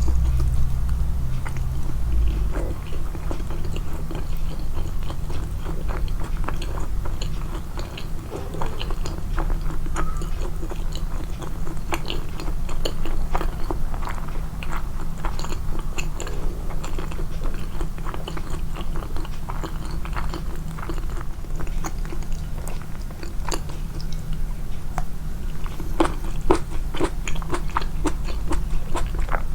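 Close-miked chewing and biting of food, with a steady stream of small wet clicks and crunches, over a steady low hum.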